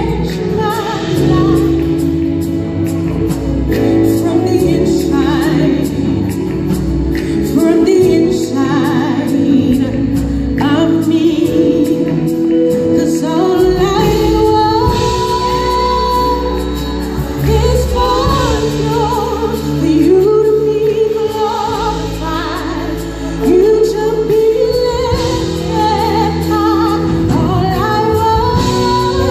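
Live gospel worship music: a group of singers, women's voices prominent, singing together over acoustic guitar and steady held low accompaniment notes.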